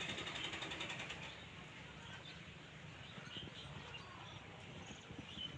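Faint outdoor ambience with a few short bird chirps over a steady background hiss.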